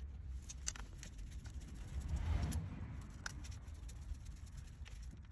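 Faint, scattered clicks and light scraping from hand work under the vehicle, with small tools and parts being handled while the actuator cover screws are worked loose.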